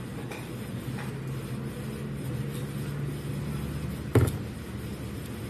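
Steady low hum, with a single sharp knock about four seconds in as a glass mug is set down on the table.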